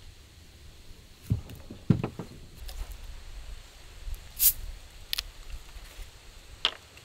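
Close handling noises: two dull knocks about a second and two seconds in. Then short hissy, crackly sounds as a 2-litre plastic soda bottle is handled and its cap twisted open.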